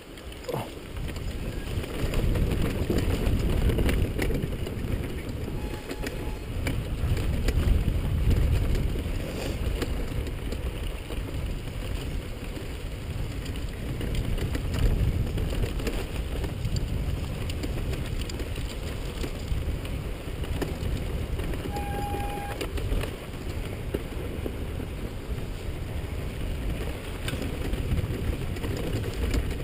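Honda CRF450R's single-cylinder four-stroke engine running as the bike rides a rough dirt trail, getting louder about two seconds in, with wind rumbling on the helmet-mounted microphone.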